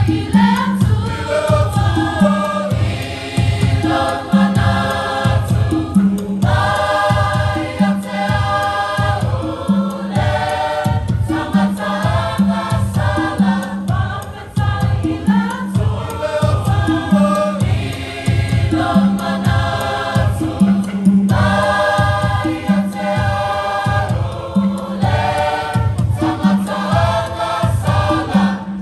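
Choir singing a Christmas carol over a steady beat of about two strokes a second; the music cuts off suddenly at the end.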